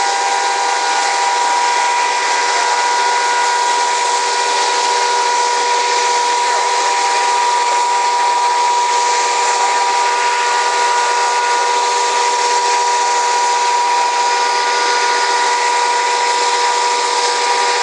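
Fire-fighting water pumps and high-pressure hose streams running steadily: a constant mechanical whine over a loud, even hiss.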